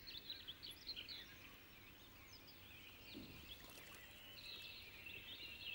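Faint birdsong over quiet outdoor background: quick high chirps for the first second or so, then a thin, steady high trill coming in near the end.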